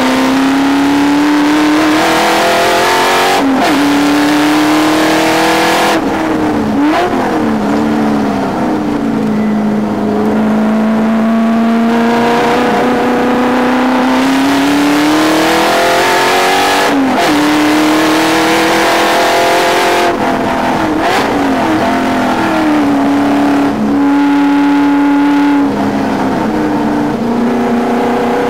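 Ford Mustang race car's engine at full throttle on track, heard from inside the cabin: the note climbs, breaks and drops at several gear changes, and falls under braking before climbing again.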